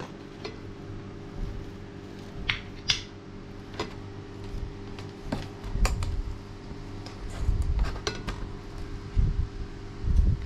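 Scattered light clinks and taps of metal moka pot parts being handled, over a steady fan hum, with a few dull low thumps.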